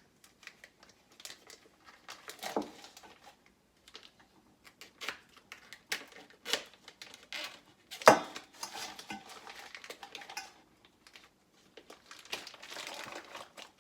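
Plastic turkey packaging crinkling as it is worked open, among knocks and scrapes on a plate in a kitchen sink. One loud clunk about eight seconds in, and a longer stretch of rustling near the end.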